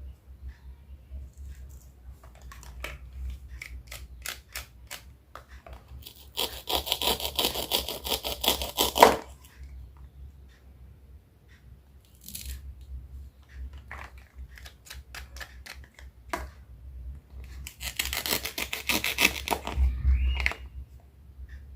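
Knife cutting produce on a cutting board: a run of separate crisp clicks, then about three seconds of continuous rasping, more scattered clicks, and a second long rasp near the end.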